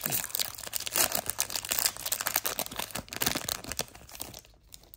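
Foil wrapper of a Pokémon card booster pack being torn open along its crimped top and crinkled as the cards are slid out: a dense run of crackling that dies down near the end.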